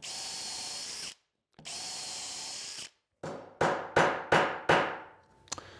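Cordless drill running in two short spells, pre-drilling pilot holes in a wooden box joint, then a hammer driving a 1-inch wrought iron nail with about six quick blows.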